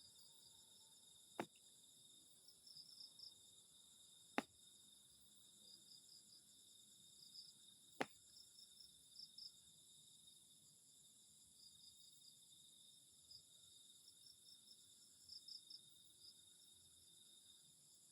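Faint, steady chirping of night crickets, with three sharp clicks spaced a few seconds apart in the first half.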